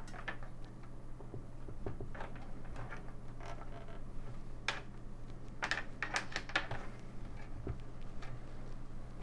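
Hands working at the wiring inside the metal case of an AT computer power supply, trying to free a stuck part: scattered clicks, knocks and scrapes, with a quick cluster of sharper clicks about five to six and a half seconds in, over a steady low hum.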